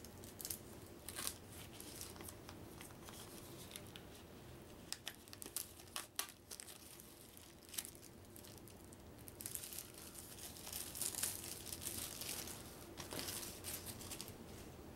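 Plastic wrapping being torn open and crinkled off cardboard game-token punchboards, with scattered sharp clicks and taps as the boards are handled. The crinkling is densest and loudest in the second half.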